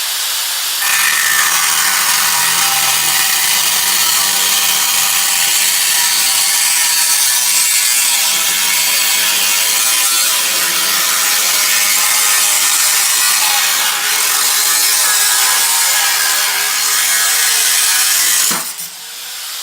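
Power tool with a spinning cutting blade slicing through the steel shell of a factory Ford ST muffler, a loud steady metal-cutting hiss. Near the end the blade comes off the cut and the motor winds down with a falling pitch.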